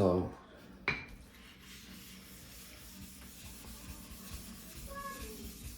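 A wet Shapton Kuromaku ceramic whetstone being lapped flat: stone surfaces scraping against each other in a steady, faint, gritty rub, with a knock about a second in.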